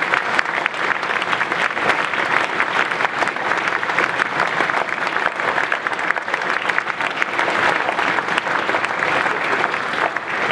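A large crowd of people clapping their hands together, steady and loud.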